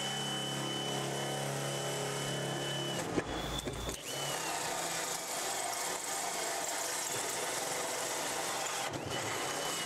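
Hilti cordless drill running a metal-cut hole saw through sheet metal, a steady motor whine with the cutting noise. The sound changes about three seconds in, turning noisier as the saw works down into the sheet.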